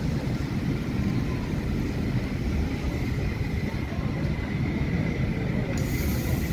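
Maroon passenger coaches of a steam-hauled train rolling past on the adjacent track: a steady rumble of wheels on rails with a faint thin whine above it.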